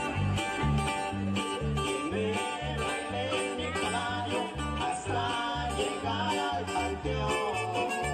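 Live band dance music: a bass line alternating between two notes on a steady beat, about two beats a second, under a melody with some gliding notes.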